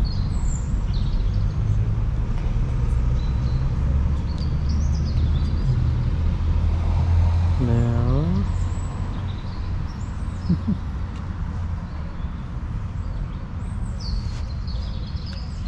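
Low, steady rumble of a nearby motor vehicle's engine running, easing off after about eight seconds, with faint bird chirps. About eight seconds in comes a short rising pitched sound.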